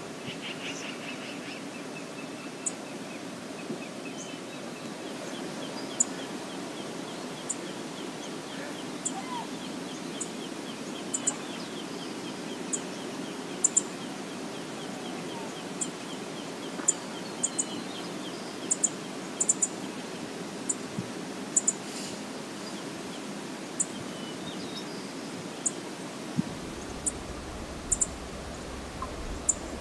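Steady rush of river water, with a small bird's high, short chip notes repeated irregularly throughout and a faint fast trill in the first half.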